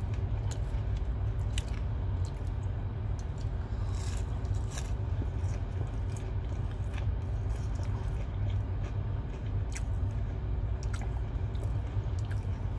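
Close-up chewing of a breaded, fried chicken tender, with scattered crisp crackles and clicks from the mouth, over a steady low rumble.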